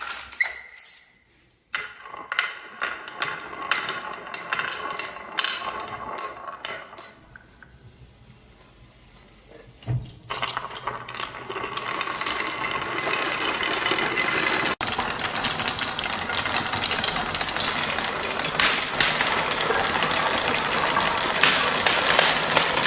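Marbles rolling and clacking through a wooden marble run: scattered clicks at first, a single thump about ten seconds in, then a dense, continuous rattle of many marbles running at once.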